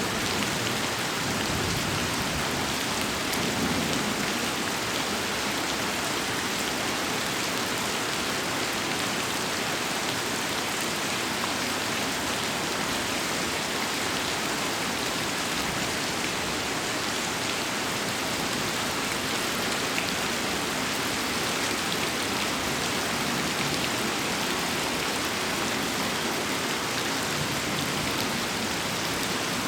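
Heavy rain falling steadily, a dense even hiss of drops on surfaces, with a faint low thunder rumble in the first few seconds.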